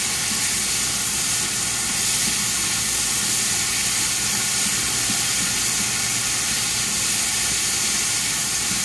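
Sliced andouille sausage sizzling steadily in a skillet deglazed with white wine, stirred with a wooden spoon.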